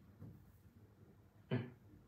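Quiet room tone with a single short tap or knock about one and a half seconds in.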